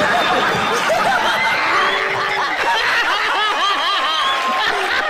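A crowd of people laughing hard together, many voices overlapping, with hand clapping mixed in.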